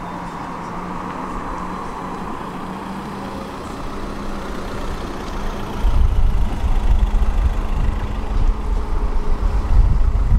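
Street traffic noise with a steady low engine hum. About six seconds in, a louder, uneven low rumble sets in and stays.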